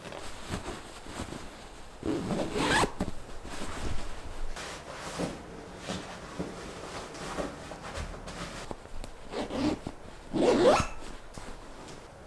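Cushion cover zipper being zipped, with fabric rustling as pillow inserts are pushed into their covers. Two longer zips stand out, about two seconds in and near the end.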